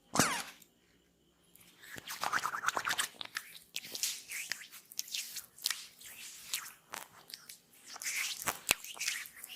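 Oiled hands massaging skin close to the microphone: irregular wet crackling, smacking and squishing. A short loud rub comes right at the start, then after a quiet second the crackling runs on densely.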